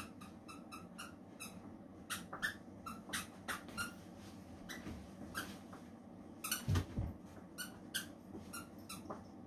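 Springer Spaniel puppy digging and rummaging in a fabric toy basket: irregular scratching, rustling and scraping, with a louder bump about seven seconds in as the basket shifts.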